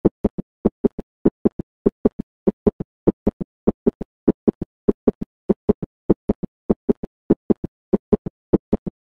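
Heart sounds in an S3 gallop (ventricular or protodiastolic gallop): a fast triple rhythm of short low thuds, the first and second heart sounds followed each time by a low third heart sound in early diastole, repeating evenly. In adults over about 30 to 35 a third heart sound is taken as pathological, a sign of a failing heart.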